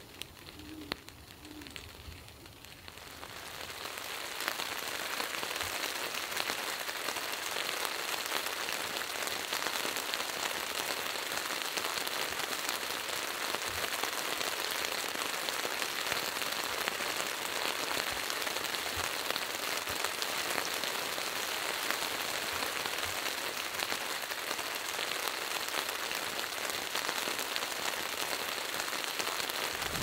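Steady rain falling, fading in about three seconds in. An owl hoots faintly at the very start.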